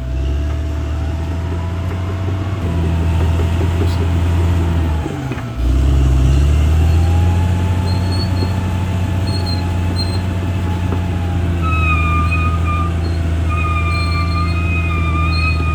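CAT D6R XL bulldozer's diesel engine running hard under load; about five seconds in the engine note sags briefly, then pulls back up louder. A high whistling whine over the engine comes and goes, most plainly in the last few seconds.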